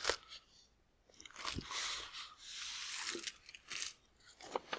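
Rustling and crinkling of packaging as the power supply and its parts are handled, with a few sharp clicks of hard plastic being set down or knocked.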